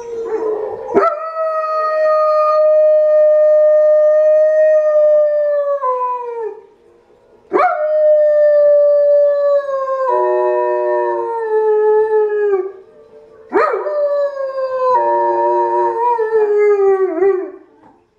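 German shepherd howling: three long howls, each with a sharp start, then held and sliding down in pitch at the end. A second howling voice, the wolves on the TV, overlaps the second and third howls.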